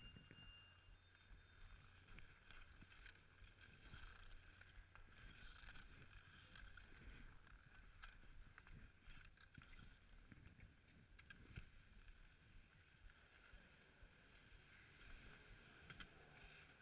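Near silence: a faint low rumble with scattered faint clicks and ticks.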